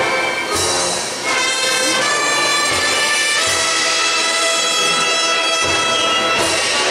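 Procession brass band playing a slow march, with held chords over occasional bass drum beats.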